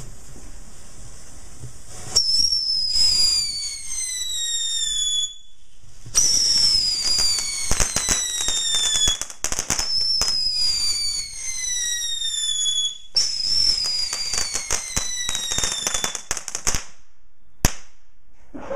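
A ground fountain firework spraying sparks with a steady hiss and crackle. Over it come four loud whistles in a row, each sliding down in pitch over two to three seconds. A single sharp crack sounds near the end.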